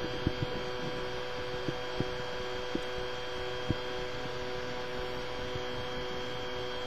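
Steady electrical hum made of several fixed tones over a noise floor, with about six short clicks or taps in the first four seconds.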